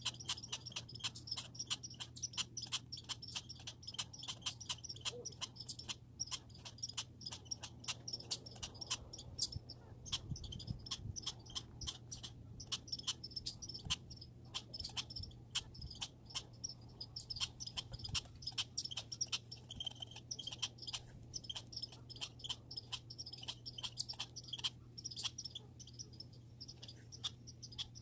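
Squirrel sounds: rapid, high-pitched chittering with dense clicking throughout, easing off briefly about ten seconds in, over a faint steady low hum.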